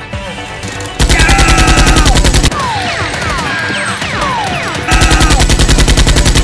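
Automatic gunfire sound effect: two bursts of rapid fire at about ten shots a second, the first about a second in and the second near the end, with short falling tones between the bursts, over background music.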